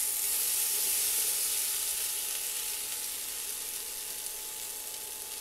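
Diced potatoes, onion and chile strips frying in oil in a pan, the potatoes beginning to brown: a steady sizzle that slowly fades.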